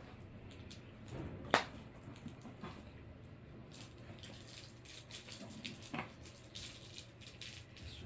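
Cats playing with toys and a cardboard box: scattered faint rustling and light clicks, with a sharp tap about a second and a half in and a softer one about six seconds in.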